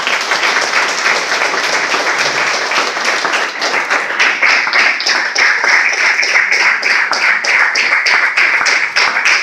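Audience applauding in a hall, the clapping falling into a steady unison rhythm from about four seconds in.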